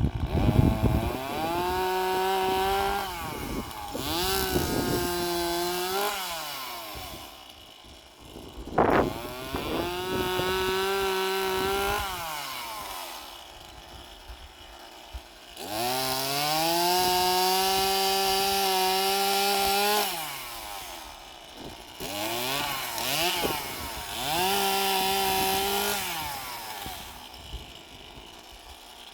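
Stihl MS 150 TC, a small top-handle two-stroke chainsaw, running in about six bursts at high revs of two to four seconds each, dropping back toward idle between them.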